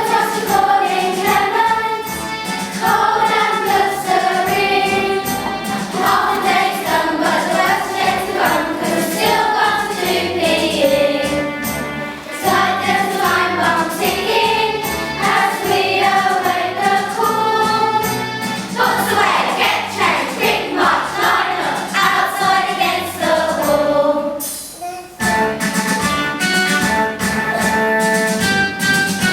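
A group of children singing a song together with instrumental accompaniment. The music dips briefly near the end, then carries on.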